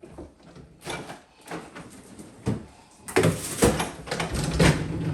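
Kitchen cabinet drawer being pulled out and handled: a few separate knocks, then a louder, busier stretch of clatter and scraping from about three seconds in.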